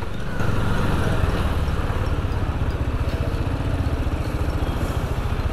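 Motorcycle engine running at low revs with a steady, even putter as the bike rolls slowly along.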